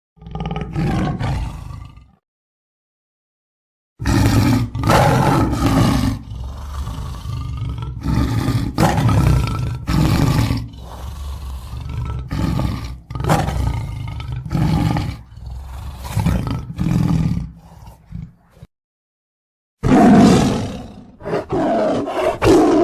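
Lion roaring: one short roar, then after a pause of about two seconds a long run of repeated roars, about one a second, and after another short pause a few more roars near the end.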